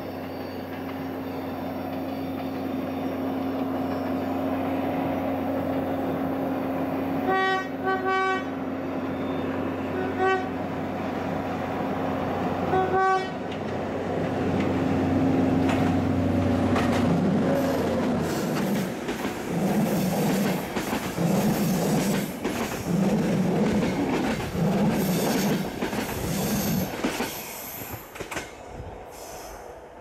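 A Hellenic Railways class 220 diesel locomotive hauling passenger coaches approaches with its engine running steadily and sounds its horn in four short blasts. It then passes close over the steel viaduct with a repeating clatter of wheels over the rail joints and some high wheel squeal, fading near the end.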